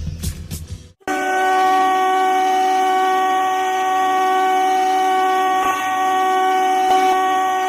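Ice hockey goal horn sounding one long, steady blast of several tones together. It starts about a second in.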